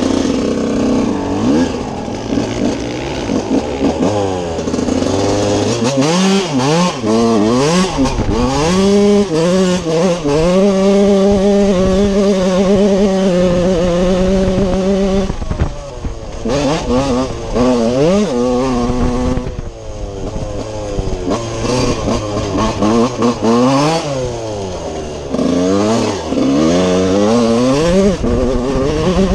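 TM 125 single-cylinder two-stroke motocross engine being ridden hard, its pitch repeatedly climbing and dropping as the throttle is worked. About ten seconds in it holds a steady high pitch for roughly five seconds before the revving up and down resumes.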